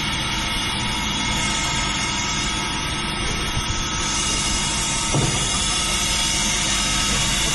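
Radiator-cutting vertical band saw running steadily, a dense machine hum with several steady tones. A single knock comes about five seconds in as the heavy scrap radiator is set down on the saw table.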